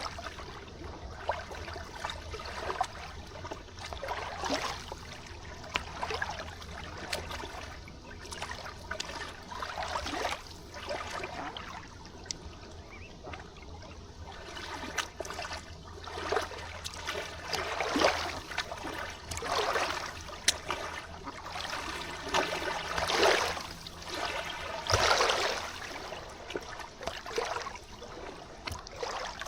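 River water trickling and lapping, with irregular gurgling splashes that grow louder in the second half. A faint steady low hum runs underneath.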